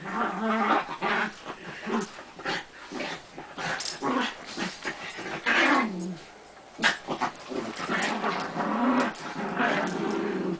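Two small dogs, a Bichon and a Schnauzer, growling at each other in rough play as they wrestle. The growls come in runs of a second or so with short gaps, and a few sharp noises cut through.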